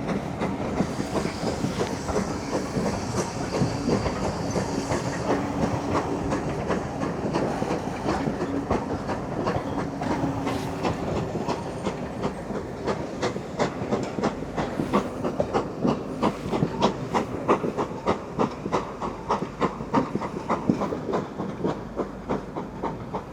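Dean Forest Railway train rolling past, its wheels clacking over the rail joints in a rapid, repeating rhythm that becomes sharper and more regular in the second half. There is a burst of hiss in the first few seconds.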